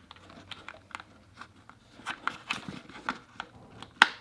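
Handling of the Elgato Stream Deck XL and its USB cable while the cable is pushed into the side of the device: scattered small clicks, taps and rustles, with one sharp click near the end.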